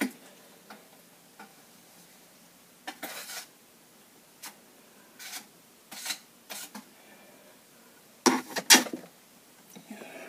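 Metal drywall knife scraping and clinking against its pan as joint compound is loaded onto it: a string of short scrapes and clicks, with the loudest cluster near the end.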